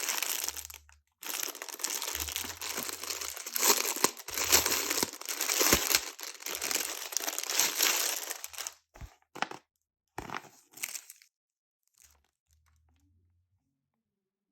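Packaging crinkling and rustling as it is handled and pulled open, for about nine seconds, then a few light handling clicks before it goes quiet.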